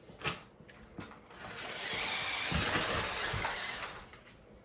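Toy remote-control monster truck's small electric motor and gears whirring as it drives for about two and a half seconds, starting about a second and a half in. There is a click near the start and a few low knocks during the run.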